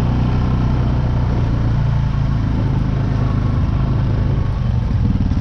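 2012 Honda Foreman 500 ATV's single-cylinder engine running steadily.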